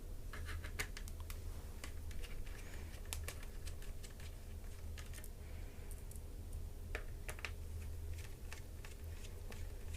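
Small screwdriver working screws out of a laptop's plastic bottom cover: scattered light clicks and ticks at an irregular pace, over a steady low hum.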